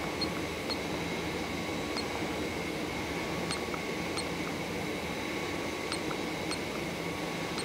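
Faint, short ticks of keys being pressed on a Yaskawa Motoman robot teach pendant, about eight at irregular intervals, over a steady background hum.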